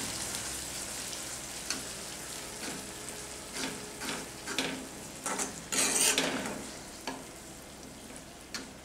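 Metal spatula stirring and scraping yogurt into hot, sizzling masala in a metal kadai: a steady sizzle under irregular scraping strokes, one longer scrape about six seconds in. The sizzle slowly dies down as the yogurt mixes into the oil.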